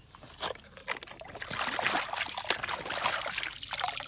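Water splashing and trickling over a plastic toy during washing, with small clicks and knocks, growing fuller about a second and a half in.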